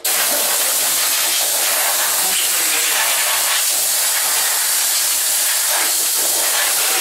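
Steady, loud hiss of a spray nozzle on a hose aimed at a bare Chevy 350 engine block.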